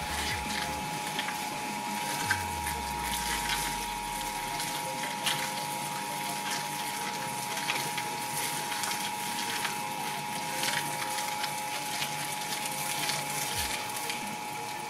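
Twin-shaft shredder running with a steady whine, its blades crunching and crackling through a head of cauliflower.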